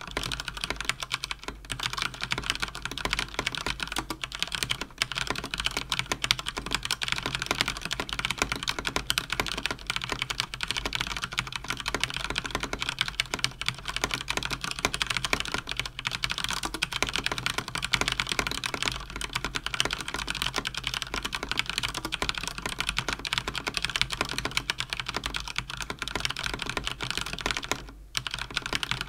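Fast typing on a Cougar Attack X3 RGB mechanical keyboard with Cherry MX Speed switches: a rapid, unbroken clatter of key clicks, with a brief pause near the end.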